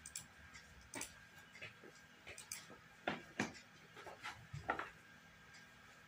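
Irregular short, soft clicks and taps, several a second at times: a computer mouse being clicked as moves are played in a fast online chess game.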